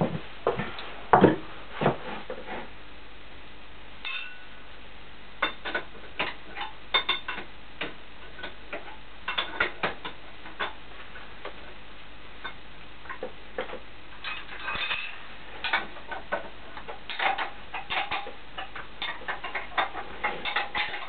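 Irregular metallic clicks and clinks of steel nuts and bolts being handled and threaded on, coming singly and in quick clusters.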